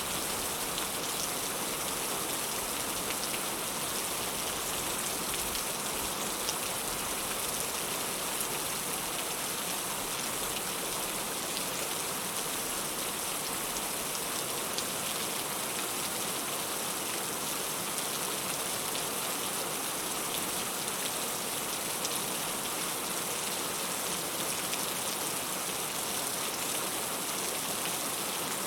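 Heavy rain falling steadily: a continuous hiss with fine patter of drops on surfaces.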